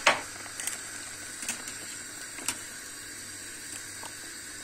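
Chicken broth simmering in a steel pot with a steady hiss, and a wire spider skimmer clinking lightly against the pot a few times.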